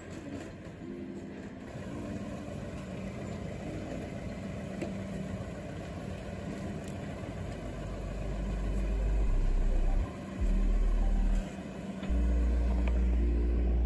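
Tractor engine running as it tows a livestock trailer slowly past. Background music with deep bass notes comes in and gets louder from about eight seconds in.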